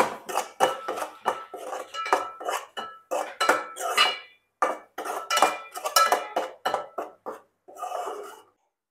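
Steel spoon scraping and clinking against an aluminium pot while stirring thick masala paste as it fries. The scrapes come in quick repeated strokes with a metallic ring.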